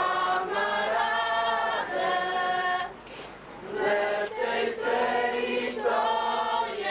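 A group of voices, a woman's among them, singing a song together in long held phrases, with a short break about three seconds in.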